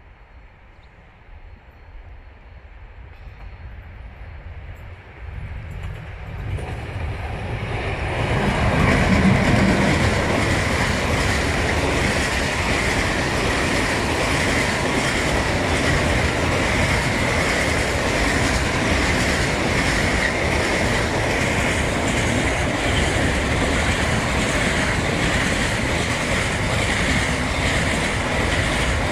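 Long freight train of open wagons loaded with logs approaching and passing close by. It grows from faint to loud over the first eight or nine seconds as the locomotive comes up and passes, then settles into the steady rumble and rhythmic clickety-clack of wagon wheels over the rail joints, with a steady high ringing from the wheels.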